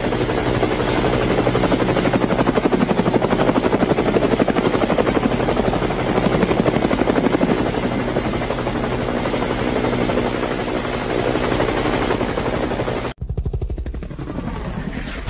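Helicopter flying close by, its rotor blades beating in a rapid even pulse over a steady high whine. About 13 seconds in it cuts off abruptly, giving way to a quieter low rumble that fades near the end.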